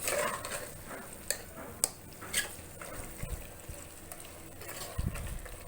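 A spoon stirring soaked black chickpeas frying in thick masala, with a faint sizzle and a few sharp taps of the spoon on the pan.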